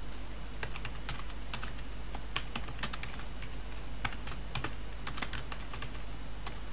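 Typing on a computer keyboard: a quick, irregular run of key clicks as a short line of text is typed, with brief pauses between bursts.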